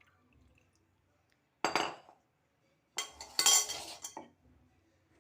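Kitchen utensils clattering against dishes: one sharp clatter about one and a half seconds in, then a longer run of knocks and clinks lasting about a second, as the syrup is handled and strained.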